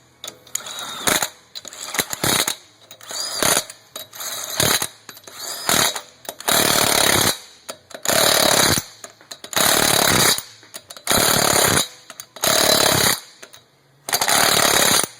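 Impact wrench running the wheel's lug nuts down: short spin-up bursts at first, then six separate hammering bursts of under a second each as the nuts are tightened in turn in a star pattern.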